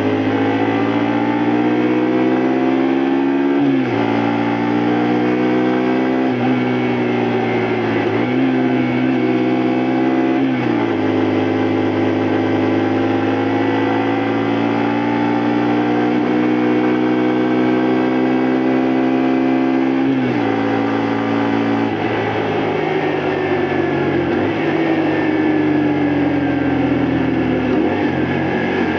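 Honda Varadero 125's V-twin engine under way. The revs climb and drop four times in quick succession as it shifts up through the gears, then rise slowly at a steady pull. After about twenty seconds the revs fall away as it slows, dipping again near the end.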